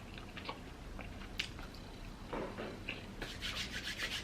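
Close-miked eating sounds: soft chewing with small wet mouth clicks. About three seconds in, a quick, even series of rasping rubs begins.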